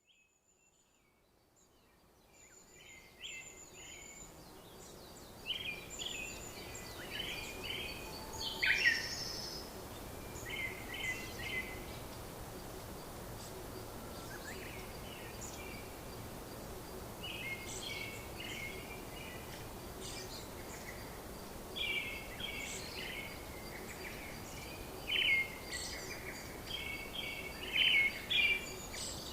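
Birds chirping and calling over a steady background hiss, fading in over the first few seconds.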